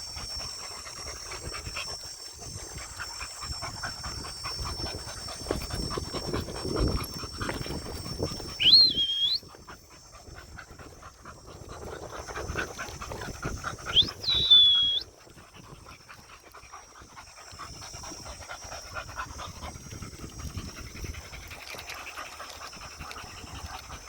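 Dogs panting steadily while walking. Two short, loud, high whistled calls cut in, about 9 and 14 seconds in. A steady high-pitched whine runs in the background through the first half.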